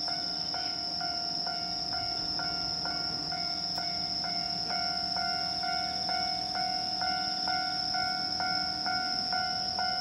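Japanese railway level-crossing warning bell ringing, an electronic ding repeated about twice a second without a break.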